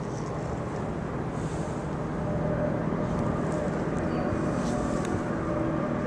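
A steady low engine drone from a distant motor, a little louder from about two seconds in.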